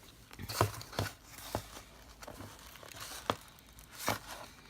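Packaging being handled as a mailed box is opened: intermittent rustling and crinkling, with a few short taps.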